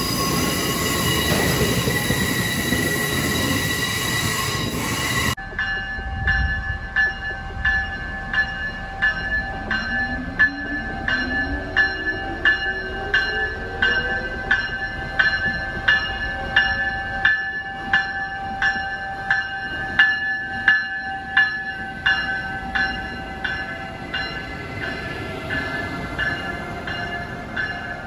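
Amtrak stainless-steel coaches rolling past with a steady wheel squeal. After a cut about five seconds in, a bell rings steadily at about one and a half strikes a second while a train approaches and passes, with a low tone rising in pitch for a few seconds midway.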